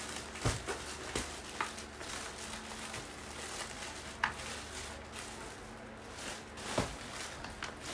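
Clothes being handled close to the microphone: soft fabric rustling with about half a dozen scattered short knocks and bumps, a second or more apart, over a faint steady hum.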